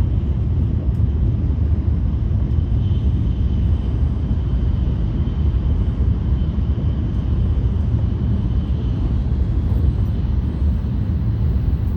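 Tohoku Shinkansen train running at speed, heard from inside the passenger cabin: a steady, loud low rumble with a faint high whine over it.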